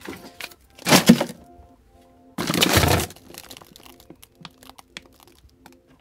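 Plastic lid of a portable 12 V compressor cooler being shut: a loud sharp clap about a second in, then a second, longer rough clatter of about half a second a little later. Faint background music with held notes runs underneath.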